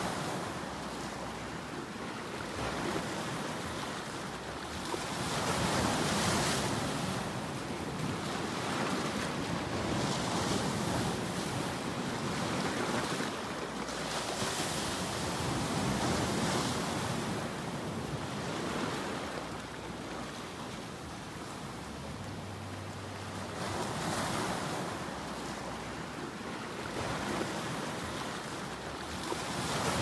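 Ocean waves breaking and washing, a continuous rush of surf that swells with each wave every several seconds.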